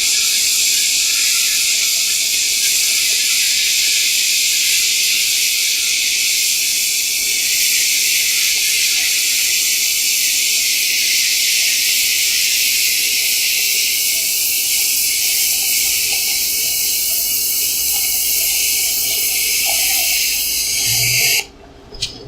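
AHP AlphaTIG 200x TIG welding arc running as a steady high hiss, which cuts off suddenly near the end as the arc is stopped.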